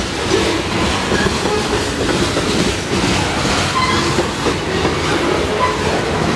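Freight train of covered hopper cars rolling past close by: a steady rumble of steel wheels on rail with clickety-clack of the wheels and a few brief, faint wheel squeals.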